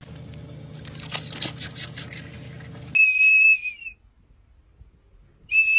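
A golden retriever blowing a small plastic whistle held in its mouth: a single shrill, steady tone, about a second long, sounds twice, the second starting near the end.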